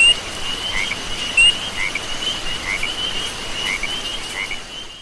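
Outdoor lakeside ambience: small animal calls, short rising chirps repeating about once or twice a second, over a steady hiss. It fades out near the end.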